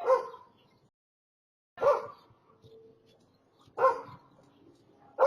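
A dog barking: four single barks, about two seconds apart.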